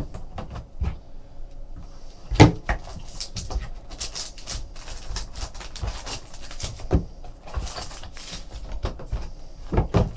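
Cardboard trading-card box being handled: the lid and inner tray knocked and scraped as packs are lifted out, with papery rustling. A loud knock comes about two and a half seconds in.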